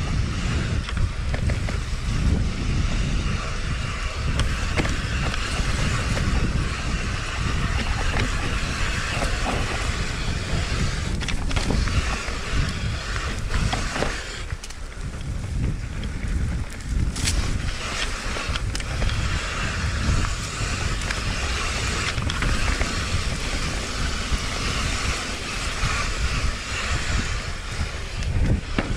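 Mountain bike rolling down a dirt trail: wind rushing over the microphone and steady tyre noise, with a few sharp knocks from the bike over bumps.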